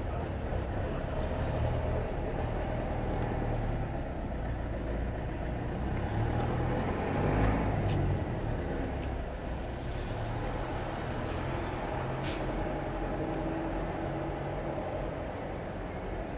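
Street traffic: car and truck engines running at low speed, steady throughout. A vehicle passes close and swells louder about halfway through, and there is a short sharp hiss about three-quarters of the way in.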